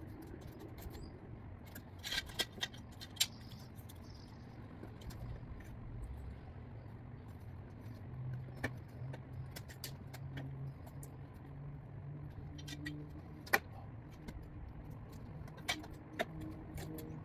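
Scattered light metallic clicks and clinks, a small cluster about two seconds in and single sharp ones later, over a steady low hum of a vehicle engine running.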